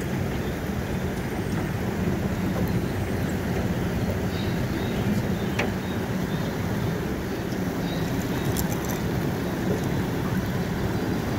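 Steady rushing noise of river current with wind buffeting the microphone, plus a few faint clicks.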